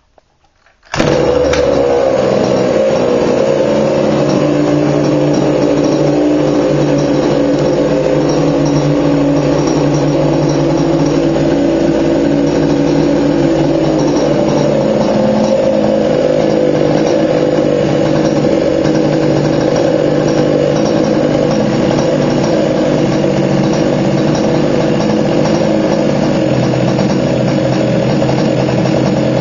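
Small two-stroke gasoline engine of an HPI Baja 5B 1/5-scale RC buggy, starting abruptly about a second in and then running at a steady speed. It is making a noise its owner cannot identify.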